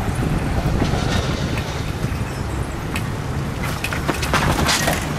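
Skateboard and bicycle wheels rolling on asphalt, with wind buffeting the microphone: a steady low rumble broken by scattered clicks and rattles, thickening into a run of rattling about four seconds in.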